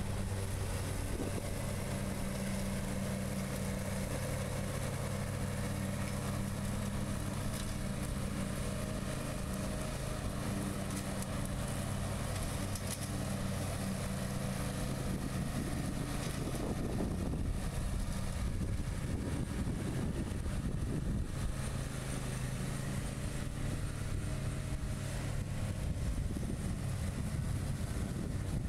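John Deere Z235 zero-turn mower's 20-horsepower engine running steadily while mowing grass, its pitch wavering for several seconds past the middle.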